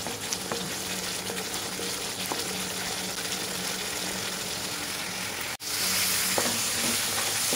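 Ground spice paste frying in oil in a wok with a steady sizzle, a wooden spatula stirring it; the paste is being sautéed until the oil separates. The sound drops out for an instant a little past halfway and comes back louder.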